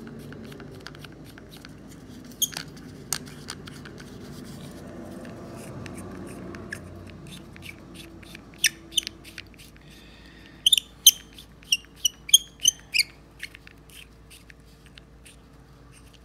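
Runcam Eagle 2 lens being threaded by hand into the camera's case: scattered clicks and handling noise, then a run of about eight sharp, squeaky clicks at roughly three a second a little over ten seconds in as the lens turns in its threads.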